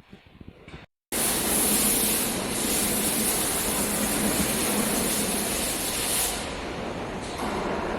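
4YZ-4S corn harvester running, a loud steady mechanical noise with a strong hiss and a low hum, cutting in abruptly about a second in and easing slightly near the end.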